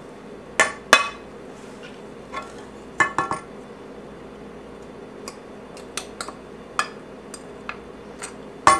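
Scattered clinks and knocks of a wooden spoon and a ceramic bowl against each other and the saucepan, as vegan margarine is scraped out of the bowl into the pot. About a dozen short strikes, a few ringing briefly.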